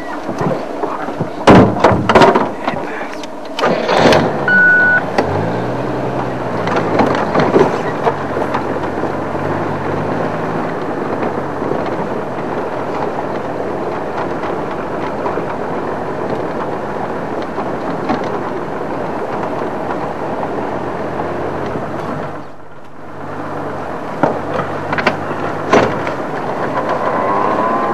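A few loud clunks, then a vehicle engine starting about four seconds in, its pitch rising. It then runs steadily as the vehicle moves off, and goes briefly quieter late on.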